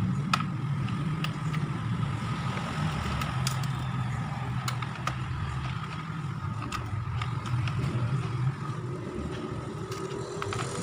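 Small sharp clicks and ticks of a screwdriver and screws being worked on a laptop's plastic case, scattered irregularly over a steady low background hum.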